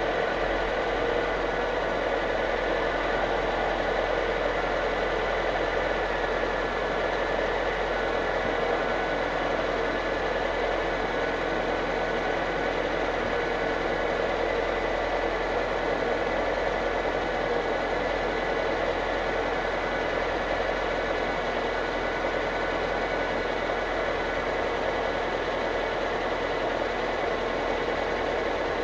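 Nissan KA24E 2.4-litre four-cylinder engine idling steadily with a freshly fitted adjustable timing-chain tensioner piston and a replaced chain guide. It sounds good, with the chain rattle the owner judges cured.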